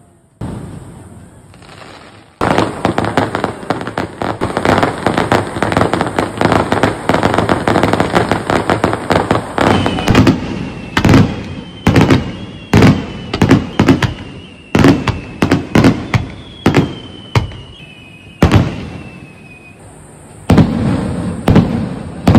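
Fireworks going off: several seconds of dense, rapid crackling bangs, then separate loud bangs about one a second with faint falling whistles, and another quick flurry of bangs near the end.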